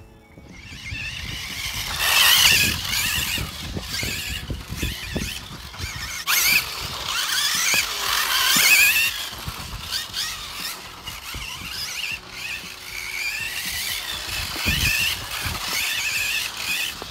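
Kyosho Turbo Optima RC buggy running on a 10.5T brushless motor: a high whine that rises and falls in pitch with the throttle, swelling and fading as the car accelerates and slows.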